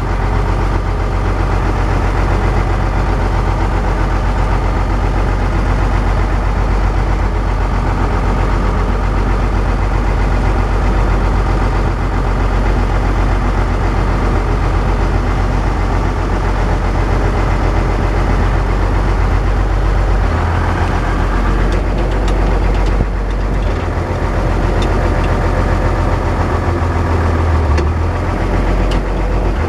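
Case 1070 tractor's six-cylinder diesel engine running steadily, heard from inside the cab. The engine note shifts briefly a little over twenty seconds in.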